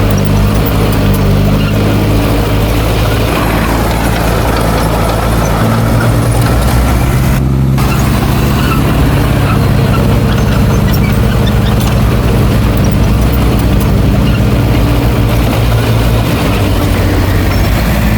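Heavy diesel engine of earthmoving machinery running steadily under work, with a low, pitched drone that shifts a little in pitch.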